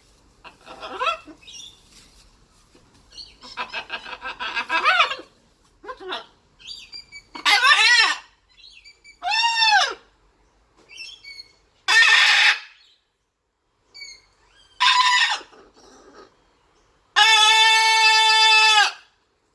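Blue-and-gold macaw squawking: a series of loud, harsh calls a second or two apart, some rising and falling in pitch. Near the end comes one long call of about two seconds, held at a steady pitch.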